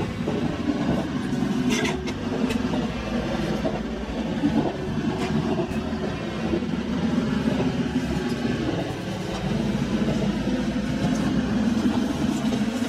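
Electric train running into a station, heard from inside its front car: a steady rumble of wheels on rail, with a few sharp clicks as the wheels cross rail joints and points.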